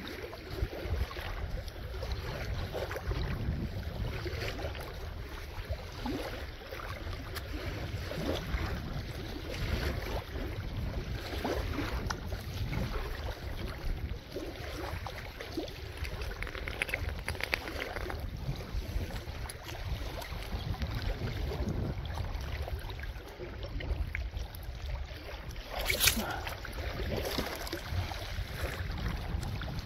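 Wind buffeting the microphone over steady outdoor water noise at a riverbank, with one sharp click near the end.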